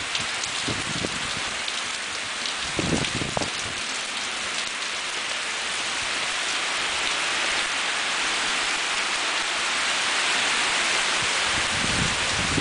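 Heavy rain pouring down in a windstorm: a steady hiss that grows heavier over the second half, with a brief low rumble about three seconds in.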